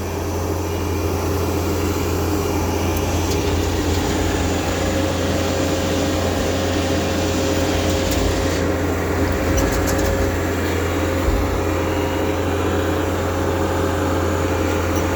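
Bobcat T650 skid steer's diesel engine running steadily while the machine moves a dumpster, a constant low hum with a steady higher whine over it.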